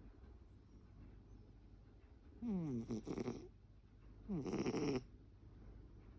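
A fat, toothless cat snoring in its sleep: two snores, about two and a half and four and a half seconds in, each lasting about a second and starting with a falling tone that turns into a rattle.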